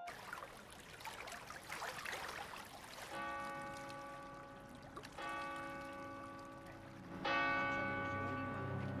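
A church bell tolls, struck three times about two seconds apart, starting about three seconds in; each stroke rings on and slowly fades. Before the first stroke there is a soft, steady rushing noise.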